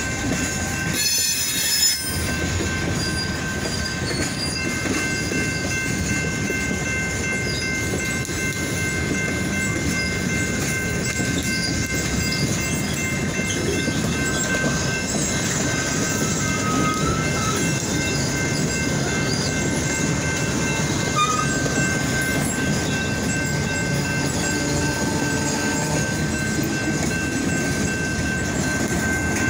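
Freight train cars rolling past, a steady rumble of wheels on rail with thin, steady high-pitched tones held above it.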